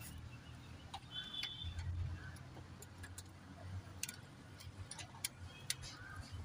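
Scattered sharp clicks and light taps at uneven intervals, from hand tools and metal parts being handled during engine reassembly, over a low steady hum.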